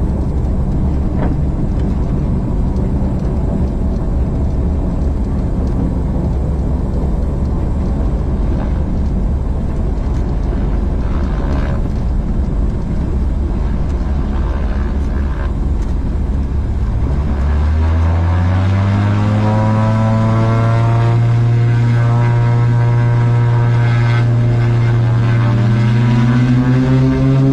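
Light aircraft's piston engine and propeller heard from inside the cockpit, a rough low rumble at taxi power. About 17 seconds in the pitch rises as power comes up, settling into a steady drone, and it climbs again near the end.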